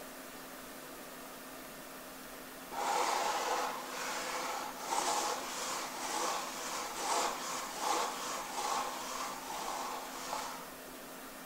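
Chalkboard eraser rubbing across a blackboard in a run of quick, uneven back-and-forth strokes, starting nearly three seconds in and stopping about a second before the end.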